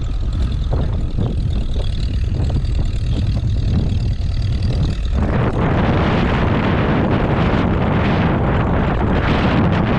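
Wind buffeting the microphone over the steady running of tractor engines at a ploughing match; about halfway through the noise suddenly swells and turns harsher.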